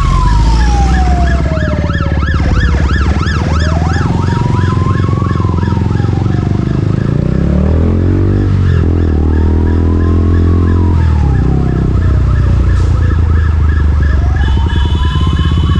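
A siren wailing, rising quickly and falling slowly about every five seconds, with a fast yelp in the first few seconds, heard over the steady running of a KTM Duke 200's single-cylinder engine, whose note shifts about halfway through.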